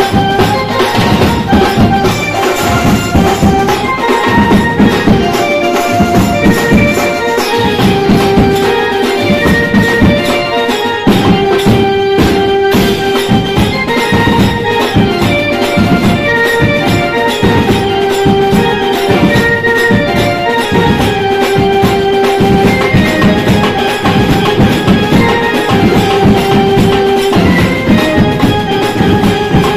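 Loud Indian procession band music: a melody of held notes over fast, dense drumming and percussion.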